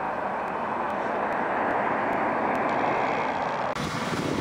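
Railroad switch snow sweeper running at work, a steady, dense machine noise. Near the end it changes abruptly to a louder, airy rush as the blower blasts snow off the track.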